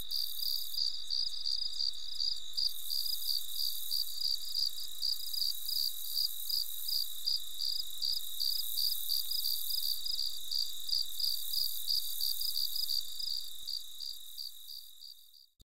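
Crickets chirping: a continuous high trill with regular chirps over it, about four a second, fading out near the end.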